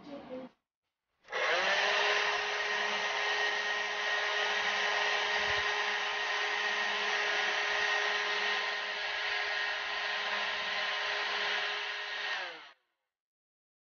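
Electric blower motor running, pushing air out through a ribbed hose. It spins up with a quick rise in pitch about a second in, runs steadily, then is switched off near the end and winds down.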